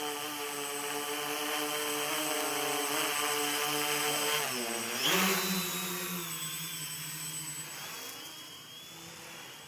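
Motors and propellers of a battery-powered four-rotor radio-controlled helicopter humming in flight. About five seconds in the pitch drops sharply, then surges back loud. A lower hum follows and fades away near the end.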